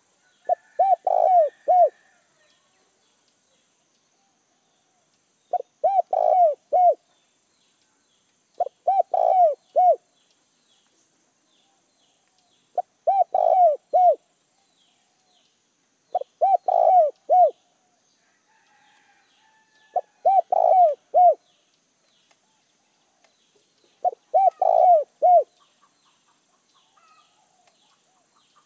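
Spotted dove cooing in seven short phrases of four to five coos each, one phrase every three to four seconds. It is a caged decoy dove calling to lure wild doves.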